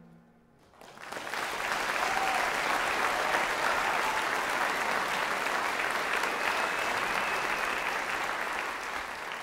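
Audience applauding, starting about a second in just after the band's last chord dies away, steady, then fading near the end.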